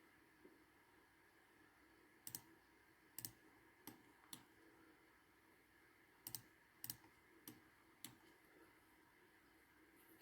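Faint computer mouse clicks, about eight at irregular intervals, over a low steady hum.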